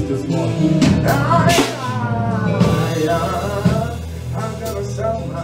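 Live worship music: a man singing into a handheld microphone over keyboard and drum kit, with steady low bass notes and cymbal strokes.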